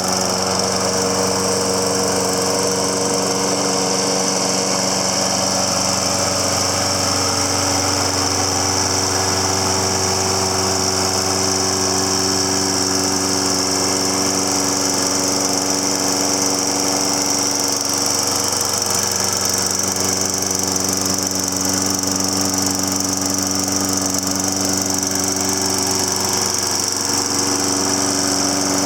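Toro Personal Pace walk-behind mower's Briggs and Stratton engine running steadily at constant speed.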